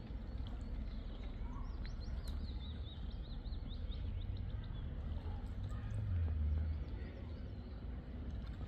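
Outdoor ambience with a steady low rumble, and a small bird singing a quick run of high chirps about two to four seconds in.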